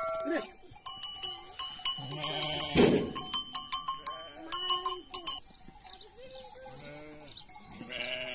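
Livestock bells on a flock of sheep and goats clanking in quick, uneven strikes for the first few seconds, with sheep and goats bleating now and then through the rest.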